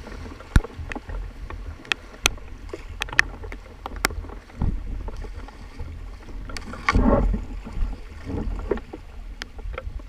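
Paddle strokes and splashing from a two-person kayak running broken water over a small step in the river, over the steady rush of the current. Several sharp knocks come in the first few seconds, and there is a louder splash about seven seconds in.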